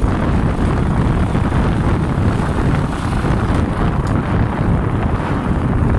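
Wind buffeting the microphone while riding in an open vehicle: a loud, steady low rumble with the vehicle running underneath.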